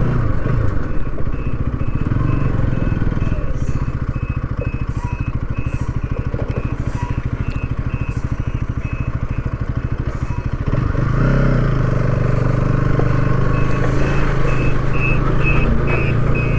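A loaded truck's engine running close by in heavy road traffic. It gets louder and deeper from about eleven seconds in. Through most of it a short high beep repeats about twice a second.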